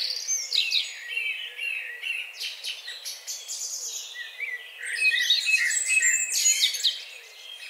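Recorded birdsong laid over an intro: many small birds chirping and twittering in quick overlapping calls, busiest near the start and again about five seconds in, thinning out near the end.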